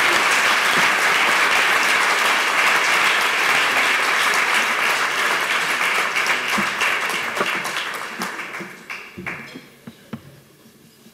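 Audience applauding steadily, then dying away near the end to a few scattered claps.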